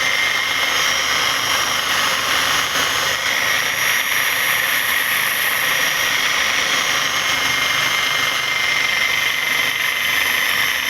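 Electric drill running steadily at constant speed, driving a homemade bobbin-winding rig, with a steady whine from its motor.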